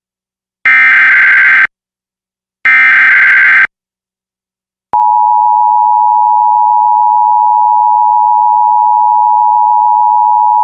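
Emergency Alert System SAME header data, two harsh digital bursts about a second each and a second apart, the encoded alert header that opens an EAS activation. About a second and a half after the last burst, the steady EAS attention signal begins, the 853 and 960 Hz two-tone alert that announces the spoken alert message.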